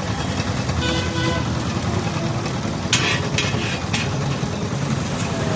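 Steady low engine rumble of passing and idling motor vehicles, with a few sharp clicks about three and four seconds in.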